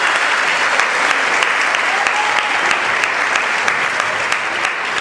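Audience applauding: a dense, steady clatter of many hands clapping, with a single voice calling out briefly about two seconds in.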